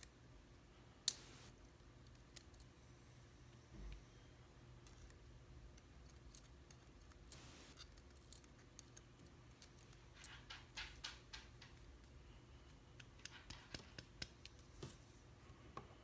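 Steel tweezers clicking and scraping in a Mul-T-Lock Garrison cylinder's pin chambers while springs and pins are picked out. One sharp click comes about a second in, then scattered light metal ticks, bunched in quick runs later on.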